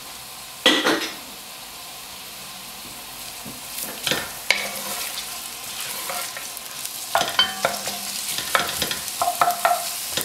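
Sliced onions sizzling in hot oil in an enamelled pot, at the start of sautéing. There is one sharp clatter about a second in. From about four seconds in, a wooden spoon scrapes and knocks against the pot as the onions are stirred, busier near the end.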